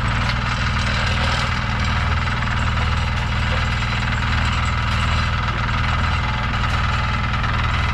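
Engine running steadily at a constant speed, with an even low pulse.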